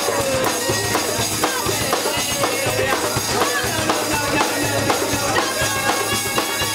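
Live band playing an acoustic punk-rock song, with drums keeping the beat.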